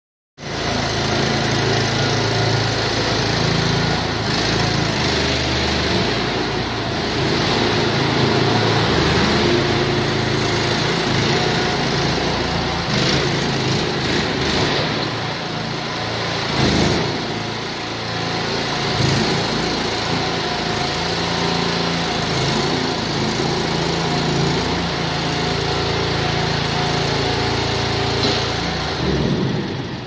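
Engine of a Diggit SCL 850 mini stand-on track loader running steadily as the machine is driven and turned on its rubber tracks, with a few brief knocks and small swells in engine speed.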